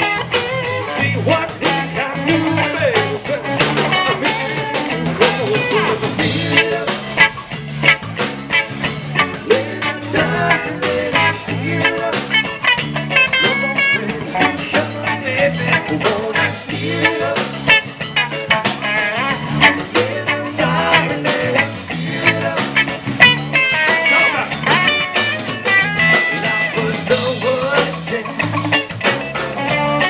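Live band playing with a steady drum beat: electric and acoustic guitars, bass guitar and drum kit.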